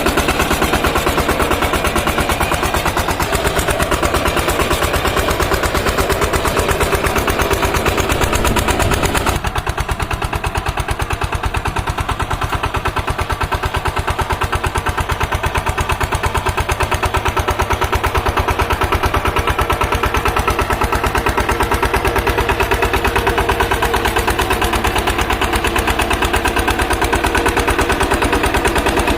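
Single-cylinder diesel engine of a Shakti power tiller running with a rapid, even chugging. About nine seconds in, the sound abruptly turns duller, with less hiss on top.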